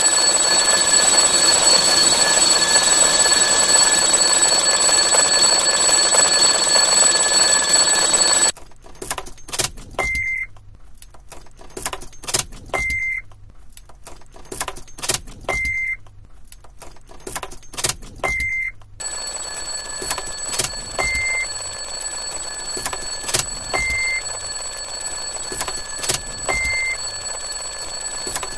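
A short, high electronic beep repeating about every three seconds, starting about ten seconds in. For the first eight seconds or so, and again from about nineteen seconds, a loud steady hiss with a thin high whine runs underneath; between them it drops to quieter clicks.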